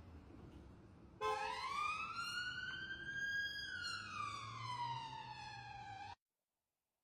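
Emergency vehicle siren sounding one slow wail: it starts about a second in, rises in pitch for about two seconds, falls back over the next two and a half, then cuts off suddenly.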